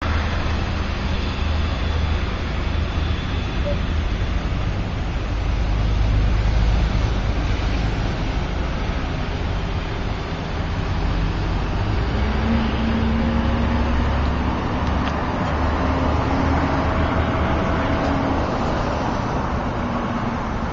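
Steady motor-vehicle noise: a low rumble with a faint hum coming in about twelve seconds in.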